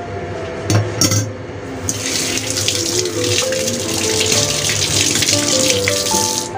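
Baby squid sizzling and bubbling in a covered wok: a crackling hiss that starts about two seconds in and stops suddenly just before the end. Background music with a simple stepping melody plays throughout, with two light knocks near the start.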